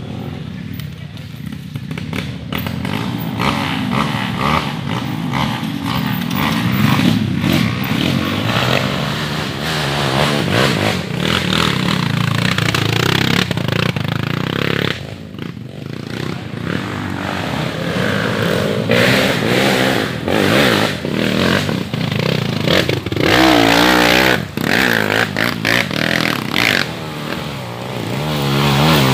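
Dirt bike engines running and revving hard in bursts, the pitch rising and falling repeatedly, as the bikes struggle up a slippery muddy climb.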